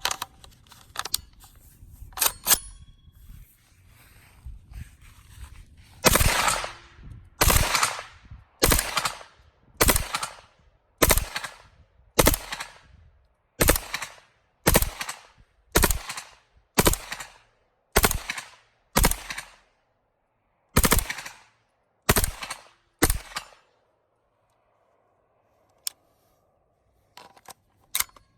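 KUSA KP-9 9mm carbine with a muzzle brake and no suppressor, firing about fifteen loud shots in a steady string, a little over one a second, after a few fainter cracks. The firing stops a few seconds before the end.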